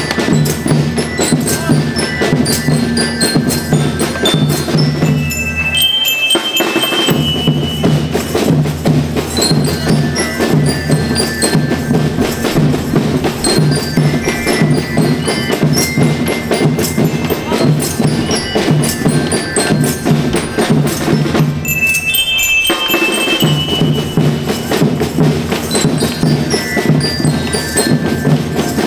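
School rhythm band playing a march: bell lyres ring out the melody over a steady beat of drums. Twice the drums drop out for about a second while the lyres sustain.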